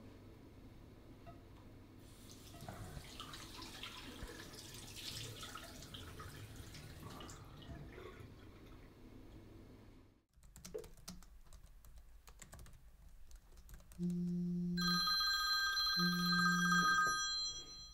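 Water running and splashing at a bathroom sink, then after a cut light clicking of laptop keyboard typing. About fourteen seconds in, a smartphone ringtone starts and is the loudest sound, signalling an incoming call.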